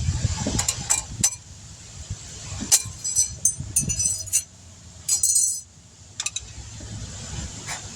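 Metal hand tools and brake parts clinking and jangling against one another during a brake job, with sharp clicks and a couple of short ringing rattles about three and five seconds in.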